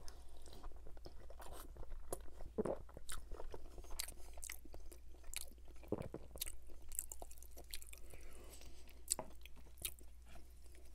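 Close-miked chewing of a mouthful of spaghetti bolognese, with many small irregular mouth clicks and smacks over a steady low hum.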